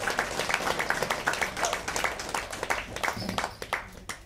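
Audience applauding, many hands clapping, the clapping thinning out and fading away near the end.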